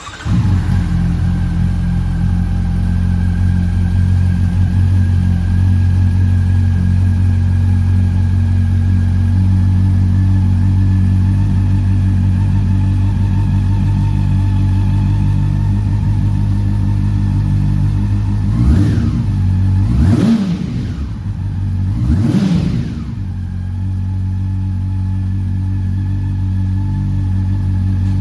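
Honda CB400 Super Four's inline-four engine, breathing through a Moriwaki aftermarket silencer, catches and settles into a steady idle. About two-thirds of the way in it is revved three times in quick succession, each blip rising and falling, then it drops back to idle.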